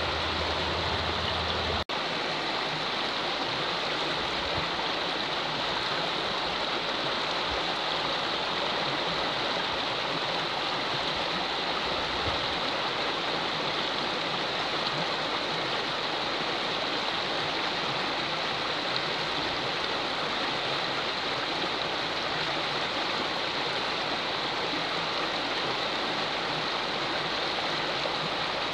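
River water rushing steadily, an even, unbroken rush with no other sound on top, briefly cutting out about two seconds in.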